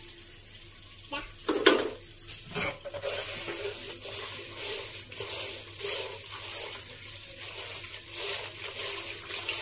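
Spinach leaves being washed by hand in water, an uneven splashing and swishing. A few knocks of a spoon against dishes come in the first seconds.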